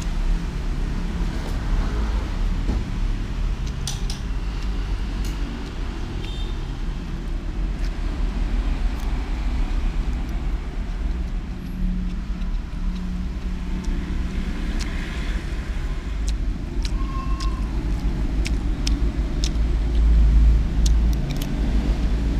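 A steady low rumble throughout, with scattered light clicks and scrapes as a metal spoon scoops rice off a paper wrapping.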